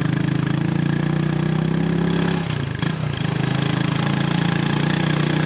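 Small motorcycle engine of a habal-habal motorcycle taxi idling steadily close by, with a brief dip about halfway through.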